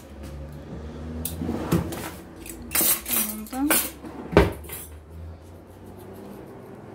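Dishes and cutlery clinking and clattering: a handful of sharp knocks over a few seconds, the loudest a little past the middle.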